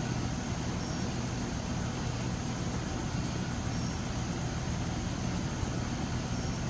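Steady low machine hum over a constant rushing noise, with a faint high chirp about every three seconds.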